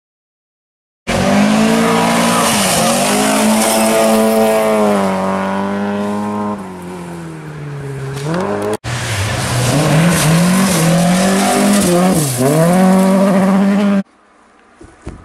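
Rally car engine at high revs, its pitch repeatedly dropping and climbing as it works through the gears. It starts suddenly about a second in, breaks off for an instant in the middle, and stops abruptly near the end, leaving faint outdoor ambience with a couple of soft knocks.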